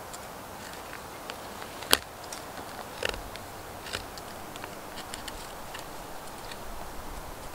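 Knife blade cutting and scraping at birch wood and bark while tapping the tree for sap: scattered small clicks and scrapes, the sharpest about two seconds in, over a steady faint hiss.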